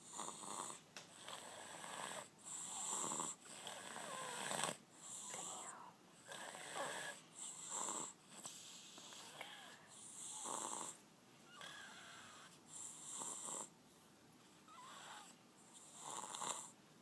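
A sleeping baby girl snoring, a rasping snore on breath after breath, every second or two, deep enough to sound like a grown man's.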